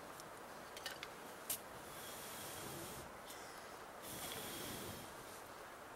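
A person blowing long, steady breaths into a smouldering tinder bundle to coax a flint-and-steel ember into flame: two long blows of about a second each, with a couple of faint clicks before them.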